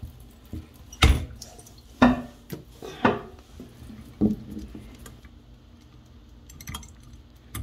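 Metal clinks of a hex key against a chrome shower valve handle while its set screw is backed out: four sharp knocks about a second apart, then a few faint ticks near the end.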